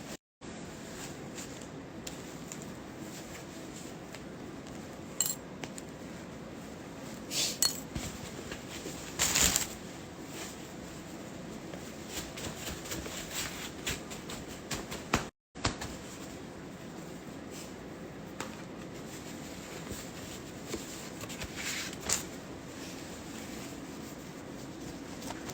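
Scattered light taps and clinks of small objects being handled, over a steady low hum; the sound drops out briefly twice.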